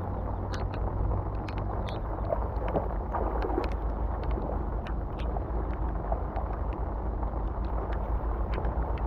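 Steady wind rumble on the microphone over light rain falling on flood water, with scattered small clicks. About three seconds in, splashing as a person wades through shallow flood water.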